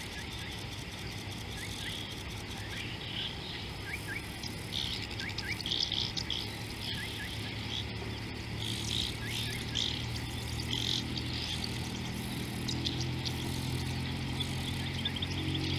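Wild birds chirping in quick short calls over a steady buzz of insects, in African bush. A low steady hum builds from about ten seconds in.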